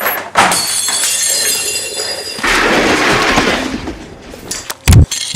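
Glass shattering with a crash, its high fragments ringing and clinking for a couple of seconds, then more crashing noise and a pair of heavy thumps near the end.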